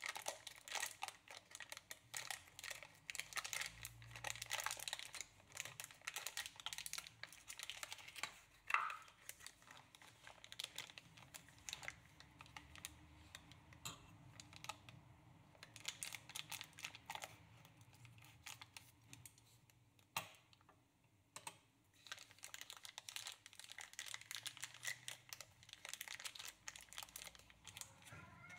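Thin clear plastic wrapping crinkling and crackling as it is handled and pulled off small wrapped items. It comes in three spells with short lulls between, and there is one sharper click about nine seconds in.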